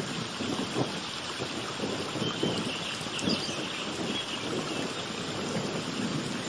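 Wind rushing and buffeting the microphone in irregular low gusts, with a few faint bird chirps in the middle.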